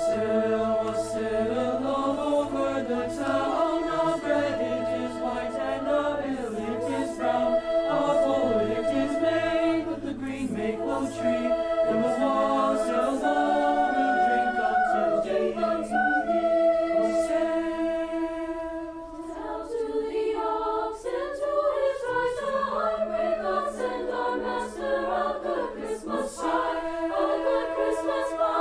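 A choir singing in harmony, several voice parts holding and moving through sustained notes, with a brief softer passage a little past the middle.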